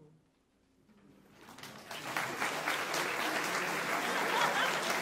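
A brief hush after the choir's final chord, then audience applause starts about a second in, swells over the next second and carries on steadily.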